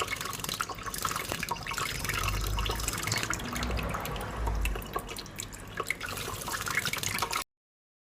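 Water running and splashing in a sink under a tap, with a dense patter of small splashes as a pet bird bathes in it. A low rumble runs from about two to five seconds in.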